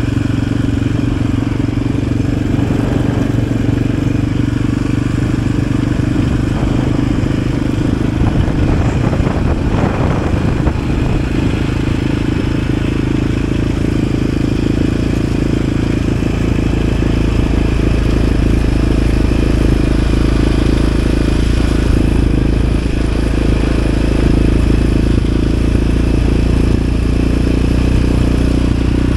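Yamaha Raptor 700 ATV's single-cylinder four-stroke engine running steadily as the quad is ridden, growing a little louder about two-thirds of the way through.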